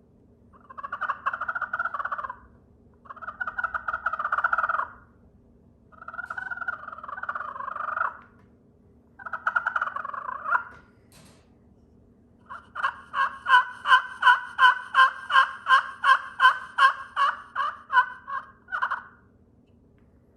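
Vintage slate turkey call played to imitate a hen turkey. It gives four long, rough strokes of about a second and a half each, then a quick run of about twenty short, evenly spaced notes, roughly three a second.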